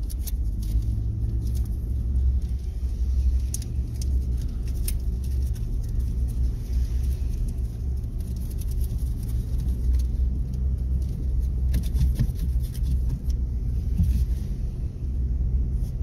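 Low, steady rumble of a car driving slowly, heard from inside the cabin, with a few light clicks scattered through it.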